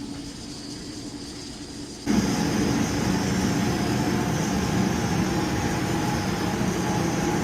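Boiler-room machinery humming steadily; about two seconds in, a louder steady mechanical running noise comes in abruptly and keeps going.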